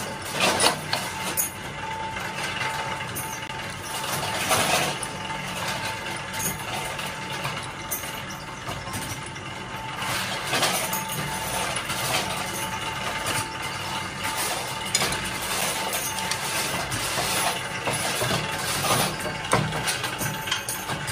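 Steady hum of running workshop machinery, with scattered clinks and scrapes of knurled steel dumbbell handles being handled and rubbed.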